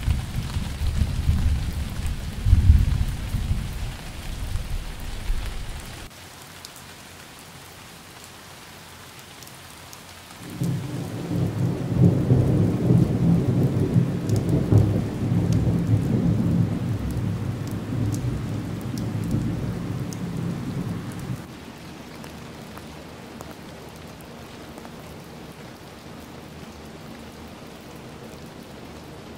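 Steady rain falling, with two long, low rolls of thunder over it. The first lasts about six seconds. The second starts about ten seconds in, runs for about ten seconds, and is the louder. Each cuts off abruptly.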